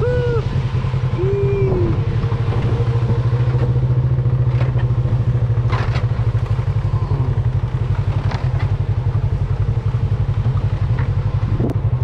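Engine of a Polaris RZR side-by-side off-road vehicle running at a steady pace, a low even drone heard from on board, with a few sharp knocks along the way.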